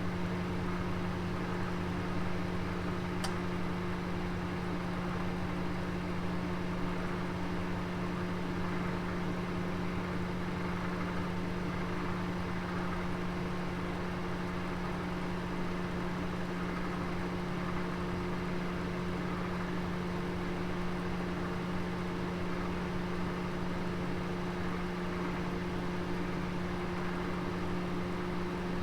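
Oven running with a steady low hum over a soft even rush, with a single faint tick about three seconds in.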